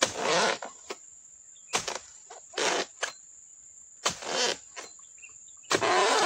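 Oil palm harvesting chisel (dodos) on a long pole jabbed into the fibrous frond bases around a fruit bunch: five short chopping strokes a second or two apart. A steady high insect whine runs underneath.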